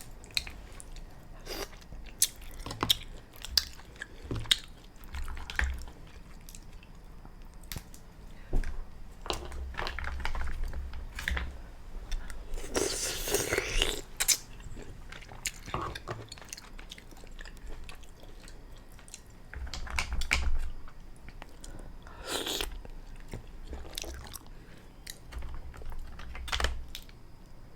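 A person eating black-lip mussels close to the microphone: chewing and biting, with sharp clicks scattered throughout and one longer, louder noisy sound about thirteen seconds in.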